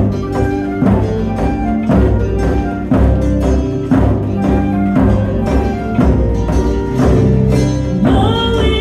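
Celtic folk band playing live: an acoustic guitar strummed in a steady beat under a held wind-instrument melody. A woman's singing voice comes in near the end.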